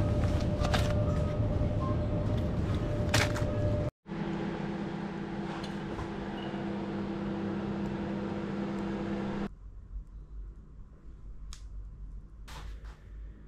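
Shop background noise with a steady tone and a couple of sharp clicks as bagged goods are handled. After a sudden cut, a Sharp microwave oven runs with a steady low hum. The hum stops abruptly, leaving a quiet room with a few faint clicks.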